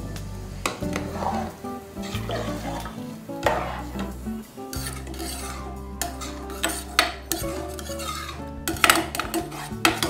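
Metal ladle stirring rice in milk in a metal pot, scraping and clinking against the pot's sides, with sharp knocks every second or so and a quick cluster of them near the end.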